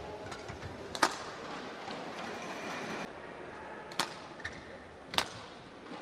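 Badminton rackets striking a shuttlecock: a few sharp, short cracks, the loudest about a second in and two more around four and five seconds in, over a steady hall background.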